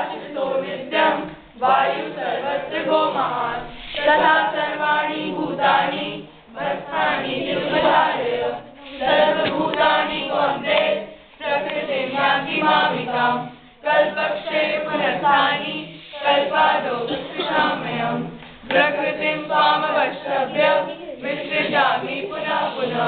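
A group of students chanting Sanskrit verses together in unison, phrase after phrase, with a brief pause after each phrase of about two seconds.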